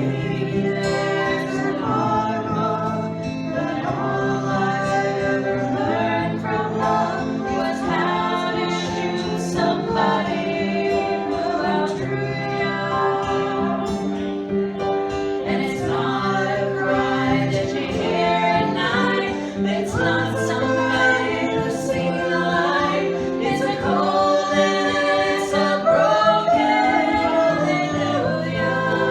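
Several voices singing a song together, with a guitar accompaniment.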